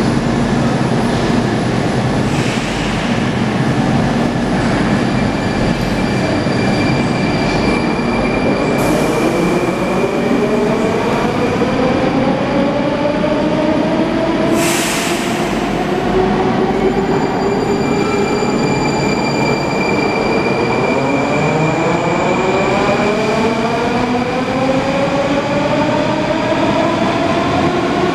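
Metro train pulling out of the station: its traction motors whine, rising in pitch as it speeds up, over a steady rumble of wheels on rail. The whine climbs twice, and there is a short hiss about halfway through.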